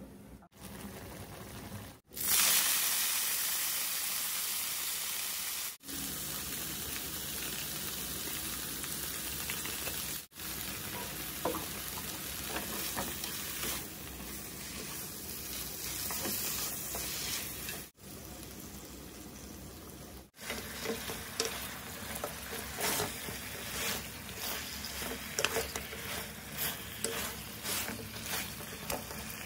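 Pork ribs sizzling in a hot pan, heard in short clips cut one after another, with a loud burst of sizzling about two seconds in. In the last third, the clatter of stirring sounds over the sizzle.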